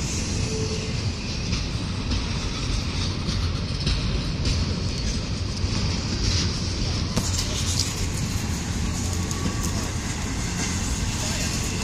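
Double-stack intermodal freight cars of a Norfolk Southern train rolling slowly past on the track: a steady rumble of steel wheels on rail, with sharp clicks that come more often from about halfway through.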